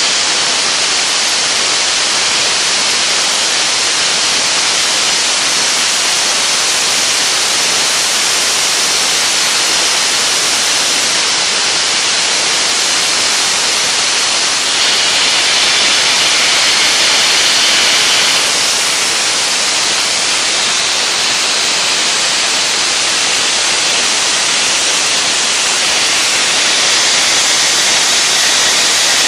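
Dry ice blaster nozzle firing a jet of compressed air and dry ice pellets onto a lacquered metal machine part, a loud steady hiss as it blasts grease and grime off the finish. The hiss grows a little louder and sharper for a few seconds midway.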